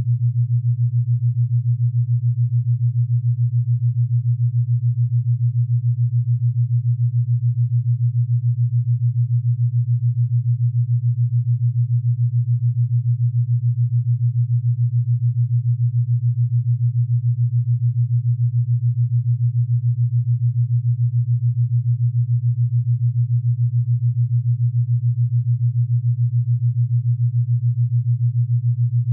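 Low, steady electronic hum from a test tone, with a fast, even flutter in its loudness.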